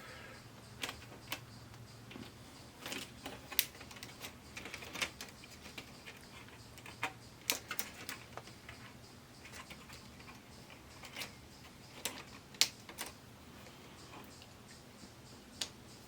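Irregular light clicks and taps of plastic parts and wire connectors being handled while the speaker wires are undone on the back of an LCD TV, a dozen or more sharp ticks spread unevenly, the loudest about twelve and a half seconds in.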